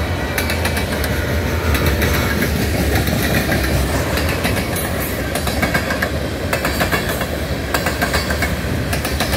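Manifest freight train rolling past at close range: a steady rumble of freight cars with repeated sharp clicking of the wheels over the rail joints.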